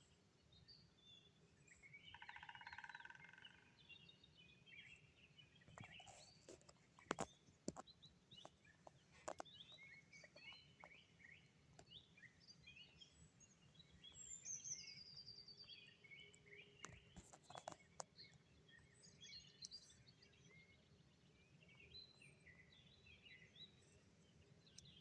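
Faint spring birdsong: small songbirds chirping and singing, with a longer, lower call about two seconds in and a falling trill about midway. A few scattered single sharp taps sound between the calls.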